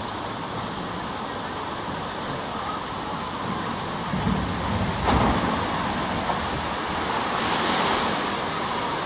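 Water running down a shoot-the-chute boat ride's slope as a boat descends, then a big splash as the boat hits the pool about eight seconds in.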